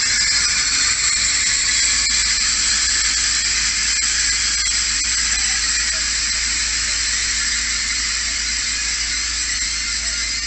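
Loud, high-pitched brake and wheel squeal from a TER multiple-unit train braking to a stop at the platform. Several shrill tones are held together and fade slowly as the train comes to rest.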